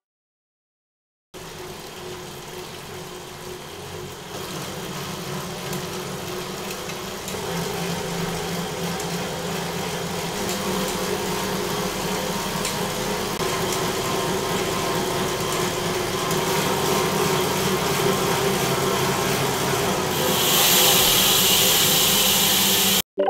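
Road bike tyre spinning on a Wahoo KICKR ROLLR smart roller trainer, powered on in standard mode, with the drivetrain turning: a steady mechanical whir that grows louder as the rider's power steps up. It starts after a moment of silence, and near the end it cuts to a louder, hissier whir.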